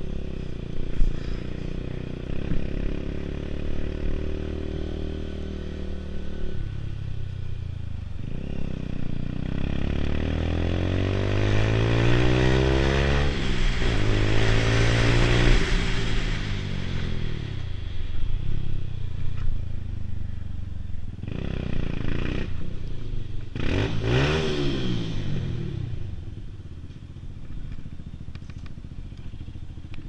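Lexmoto Tempest GT 125 motorcycle engine under way, its pitch rising as it accelerates, dropping at a gear change, rising again and then falling away as the bike slows. Wind rushes over the helmet microphone at the higher speed, and there is one more brief rise and fall in engine pitch later on.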